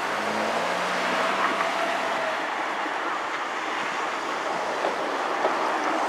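KiHa 75 series diesel multiple unit moving slowly on a shunting move, its diesel engines running over a steady wash of noise. A low engine drone is most plain in the first two seconds.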